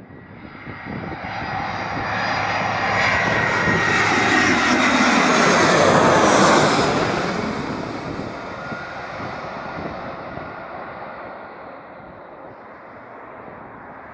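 Twin-engine jet airliner passing low overhead on final approach with its landing gear down: the engine whine and rumble build to a loud peak about six seconds in, then drop in pitch and fade as it moves away.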